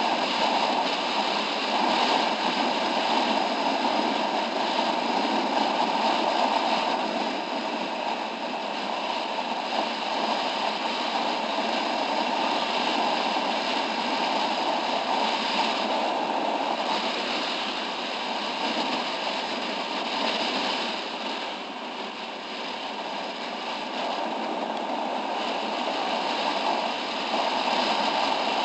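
Steady wind rush over the camera microphone on a moving motorcycle at road speed, a hissing noise that hides the engine, easing slightly about two-thirds of the way through.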